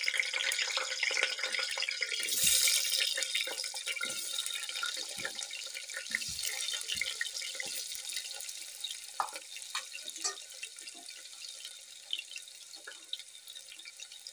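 Raw potato pieces sizzling in hot oil in a pressure cooker as they are added to fry, with scattered pops and crackles. The sizzle is loudest in the first few seconds and then gradually settles.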